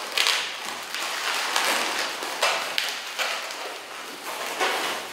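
Inflated latex 260 modelling balloons rubbing against each other as two pairs are twisted together, in a run of irregular scraping strokes.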